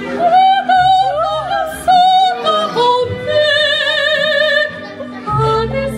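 Music with a solo singing voice carrying a melody, with long held notes and strong vibrato on one note near the middle, over a low accompaniment.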